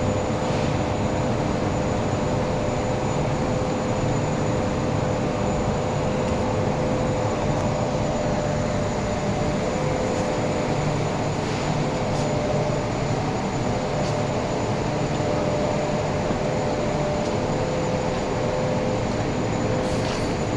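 A workshop machine running steadily, a constant mechanical hum with a few fixed tones and a faint high whine, and a few light clicks.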